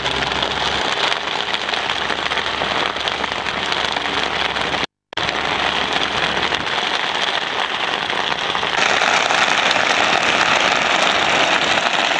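Steady rushing wind and road noise from riding in a moving vehicle, loud on the camera's microphone. It cuts out for an instant about five seconds in and grows louder and hissier about nine seconds in.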